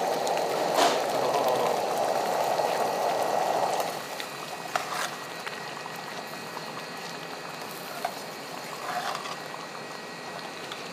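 Black lentil dal bubbling in a stainless steel pan on a gas burner as cream is ladled in and stirred. The bubbling is louder for the first four seconds, then drops to a quieter simmer, with a few light clicks of the spoon against the pan.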